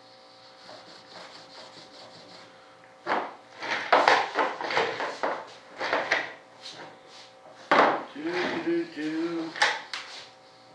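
Paste wax being rubbed by hand onto a composite wing mold: light quick strokes at first, then loud, irregular scrubbing strokes from about three seconds in. The waxing is the release coat for the mold.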